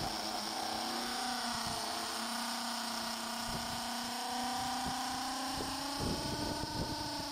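Handheld electric drill running steadily against a rivet hole in a windlass brake band lining, a continuous motor whine whose pitch wavers slightly.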